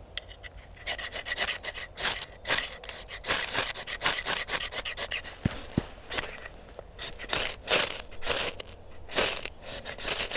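An uneven run of rasping, scraping strokes, two or three a second.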